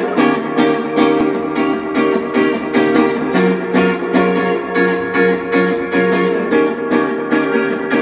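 Solo electric guitar strumming chords in a steady, even rhythm, with no bass or drums underneath.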